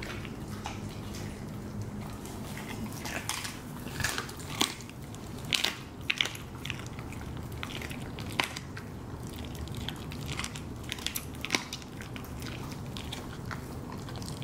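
Siberian husky chewing a raw chicken foot: wet chewing broken by irregular sharp crunches of small bones, several a second.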